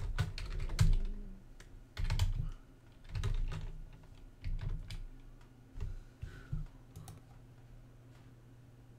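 Typing on a computer keyboard in several short bursts of keystrokes, stopping about seven seconds in.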